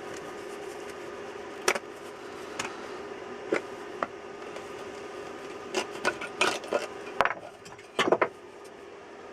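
Tools and small metal items being handled and packed: a scattered series of sharp clicks and knocks, several close together near the end. A steady background hum runs underneath.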